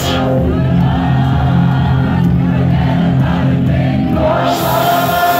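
Loud trance dance music from a club sound system, its heavy bass steady but its treble filtered away so it sounds muffled. About four seconds in, the filter sweeps open and the full, bright track comes back.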